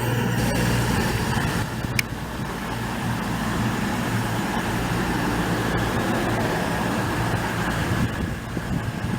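Train running at a station platform: a steady low hum and rumble, with a single sharp click about two seconds in.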